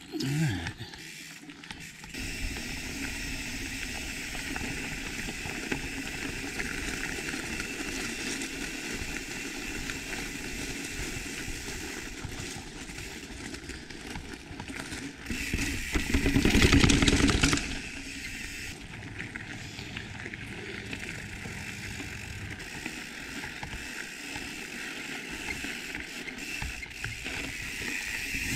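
Mountain bike being ridden over forest dirt and a gravel road: steady tyre and rolling noise with the rattle of the bike. About sixteen seconds in, a louder rumble lasts about two seconds.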